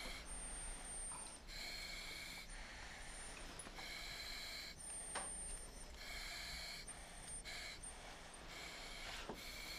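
Rhythmic hissing of a patient's breaths through an oxygen mask, in a steady cycle about every two seconds. A thin high whistle sounds between the hissing phases.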